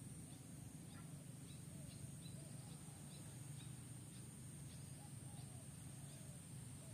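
Faint outdoor ambience: a steady low hum and a steady high hiss, with faint short animal chirps repeating about twice a second.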